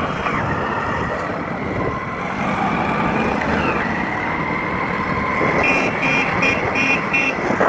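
Several motorcycles running at road speed, with wind rushing over the microphone of the moving bike. A quick run of short, evenly spaced beeps comes near the end.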